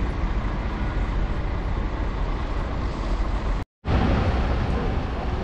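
City street traffic: a steady rumble of passing vehicles. About two-thirds through, the sound drops out completely for a moment at a cut, then the traffic resumes.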